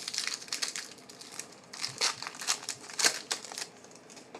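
Crinkling and crackling of a trading-card pack's foil wrapper as it is handled. The crackles are irregular, with the loudest around two and three seconds in, and they die down near the end.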